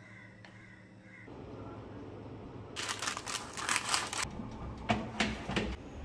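Parchment paper crackling as it is handled and cut with scissors, a dense burst of crisp rustling and snips about three seconds in, with a shorter burst of clicks near the end.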